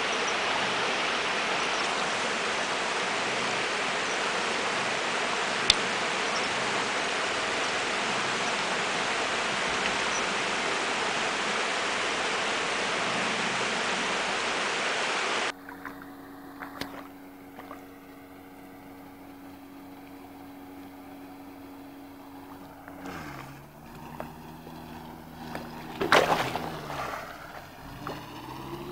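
Steady rush of water from a shallow, rocky river. About halfway through it cuts to a quieter car engine running steadily as the car wades through flood water. Near the end the engine's pitch dips and rises, and there is a sudden loud burst.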